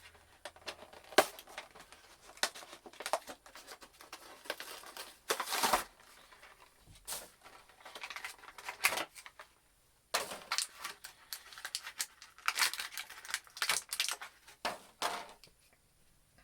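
Action-figure packaging being opened by hand: cardboard and plastic tearing, crinkling and clicking in irregular bursts, with the longest rip about five and a half seconds in.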